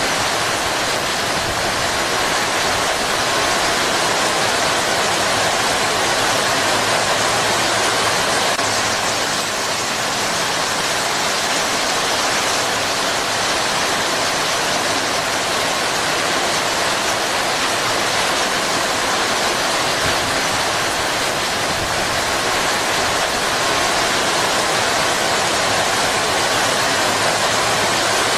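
Heavy rain pouring steadily, an even unbroken hiss.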